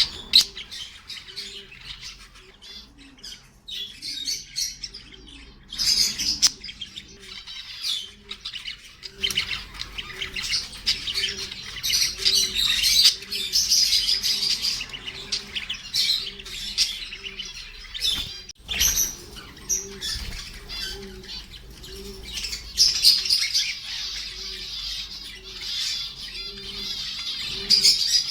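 A flock of caged pet parrots chirping and squawking together in a continuous, overlapping chatter, with some wing flapping. Underneath, a faint low pulsing tone repeats about twice a second.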